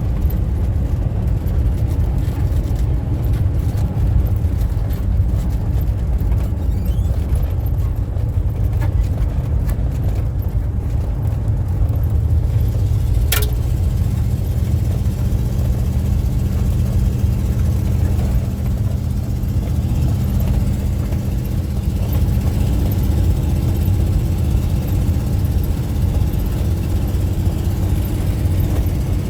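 Car driving at steady speed, heard inside the cabin: a constant low rumble of engine and tyre noise with a steady hum. There is a single sharp click about 13 seconds in.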